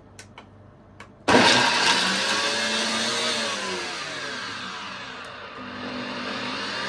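Electric mixer grinder switched on a little over a second in, after a few faint clicks, then running continuously as it grinds fresh henna leaves into a wet paste. It is loudest at the start, and its pitch sags and then climbs again as the load of leaves shifts in the jar.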